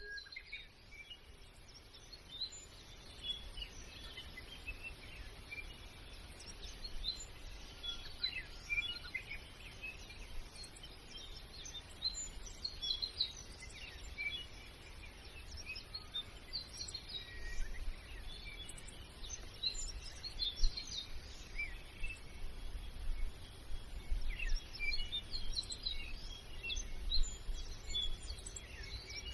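Many small birds chirping over and over in short, scattered calls, over a low background rumble.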